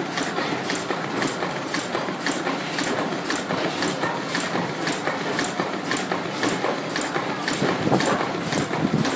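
Galaxo PRO780LB crash-lock-bottom folder-gluer running at speed, a steady mechanical clatter with a regular clicking about three times a second as carton blanks pass through.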